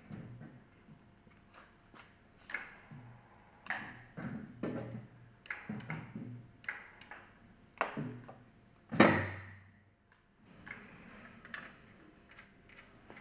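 Irregular metal knocks and clunks as a centrifugal pump's impeller unit and bearing bracket are lowered on a hoist and seated onto the pump casing. The loudest clunk comes about nine seconds in.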